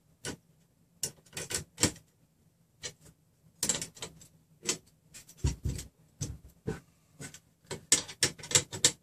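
A combination wrench turning and clinking against the nuts on the steel threaded rods of a Prusa Mendel frame as they are tightened: irregular sharp metal clicks and clatters, sparse at first and coming thicker toward the end.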